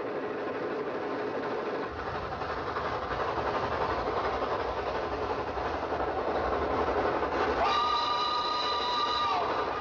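Cartoon sound effect of a train running with a steady rumble. Near the end a train whistle blows, a chord of several tones held for about two seconds that sags in pitch as it stops.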